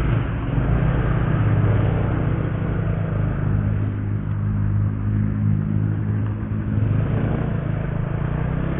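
Yamaha scooter engine running steadily as the scooter pulls away and rides onto the road, a low rumble heard from the rider's position.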